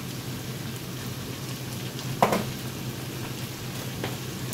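Corn, onion and red bell pepper frying in a skillet, a steady sizzle, with a brief sharp knock about two seconds in.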